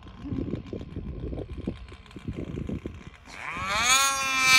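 Snowmobile engine revving hard, its pitch climbing about three seconds in and then holding high, as the rider tries to power the sled out of deep powder where it is stuck. Before the rev, a low, uneven rumble.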